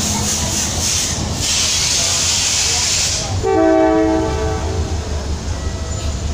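Train noise: a steady low rumble with a hiss, then a train horn sounds a chord of several notes about three and a half seconds in, lasting about a second and a half.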